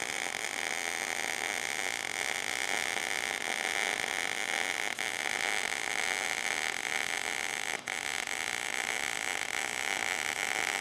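MIG welding arc from an Everlast PowerMTS 221 STi running .023 wire on 14-gauge steel, sizzling steadily, with one brief break about eight seconds in. The machine is set to 18.0 volts, 210 inches a minute wire speed and 35% inductance to soften the arc and round the bead.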